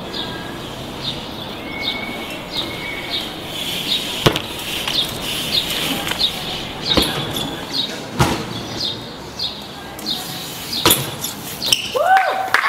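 BMX bikes ridden on a concrete and tile plaza. A few sharp knocks as tyres and pegs hit the ledges and ground, over steady outdoor hiss. A short high chirp repeats about twice a second throughout.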